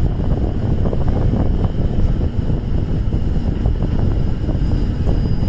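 Interior sound of a KiHa 110 series diesel railcar under way: a steady low rumble of the diesel engine and the wheels running on the track.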